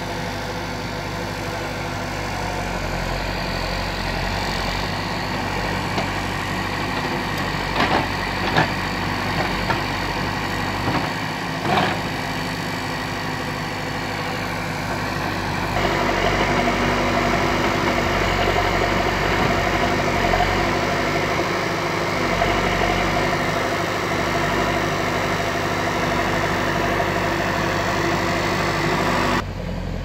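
Diesel engine of a JCB 3DX backhoe loader running steadily while it works, with a few sharp knocks about a third of the way in. The engine is louder from about halfway on.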